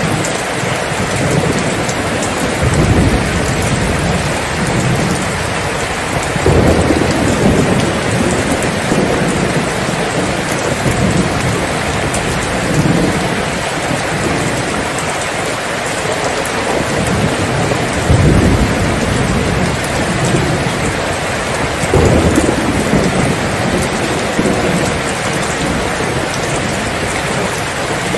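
Steady heavy rain falling, with low rolls of thunder that swell and fade several times.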